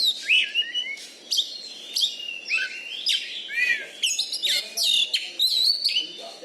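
Oriental magpie-robin (kacer) singing: a rapid, varied run of whistles, sweeping and falling notes and sharp chirps with hardly a break.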